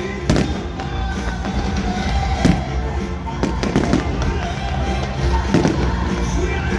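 Aerial firework shells bursting in repeated sharp bangs, about one or two a second, over music with held notes and a heavy bass.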